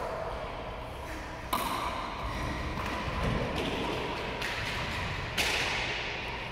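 A racquetball being hit and striking the walls and floor of an enclosed court: two loud smacks about four seconds apart, each trailing a long echo, with a few fainter hits between them.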